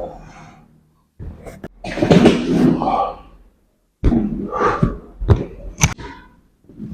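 Chiropractic adjustment: thumps and sharp joint cracks, a pair about a second and a half in and another pair near six seconds, with short vocal sounds from the patient in between.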